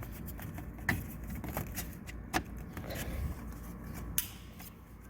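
Plastic rustling and scraping as a new Pontiac Solstice turn-signal switch is slid into its housing on the steering column, with three sharp clicks spaced about a second and a half apart.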